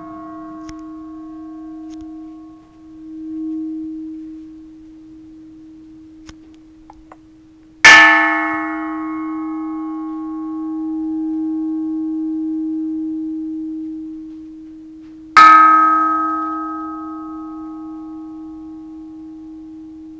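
Cast Japanese temple bell struck twice, about seven and a half seconds apart. Each strike gives a bright clang whose overtones ring out and fade over several seconds, while a low hum keeps sounding underneath, slowly swelling and fading. The ring is long and full, a small casting crack not affecting the sound.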